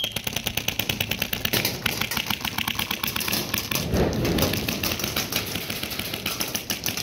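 Airsoft rifle firing a long, fast, even string of shots, heard as a rapid clatter of sharp clicks.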